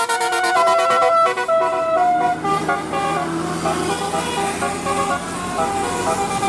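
Bus telolet horn, a multi-tone musical horn, playing a tune of stepped notes: loud held notes for the first two seconds or so, then quicker, shorter notes. A steady low hum runs underneath for a few seconds.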